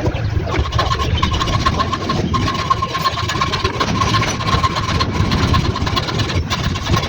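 An engine running steadily, with a steady high whine over it from about half a second in.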